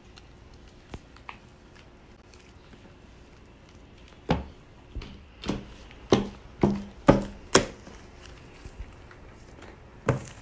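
Hands slapping a lump of blue foam (shaving-cream) slime down on a tray. One slap comes about a second in, then a quick run of about seven sharp slaps from about four seconds in, and one more near the end.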